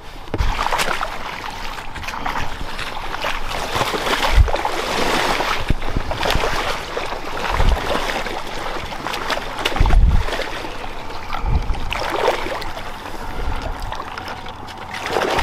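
Shallow water sloshing and splashing in an uneven rhythm, with irregular low thuds, as hunters in waders wade through flooded sheetwater.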